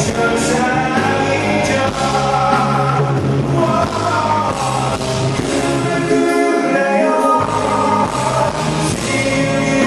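A man singing live into a handheld microphone over band accompaniment, long held vocal lines above steady bass notes. The low bass drops out for about a second just past the middle, then returns.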